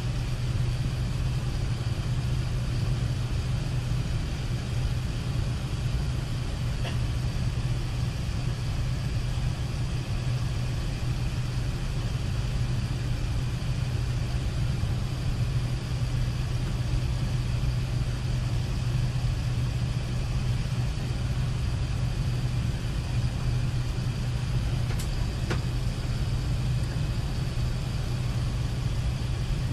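Steady Airbus A380 cabin noise: an even rush with a strong low hum that never changes. Two faint light clicks, about seven seconds in and near the end.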